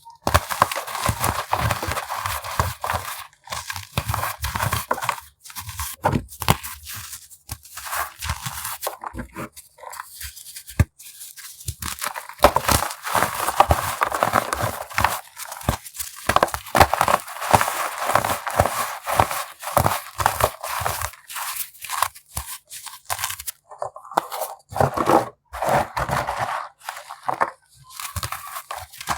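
Chunks of baking soda being crushed: a dense, continuous run of crisp crunches and crackles, broken by a few short pauses.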